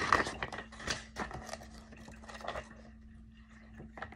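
A quick run of scratching and scraping noises, like something being handled or rubbed close to the microphone. They are loudest in the first second and die away by about three seconds in, over a faint steady hum.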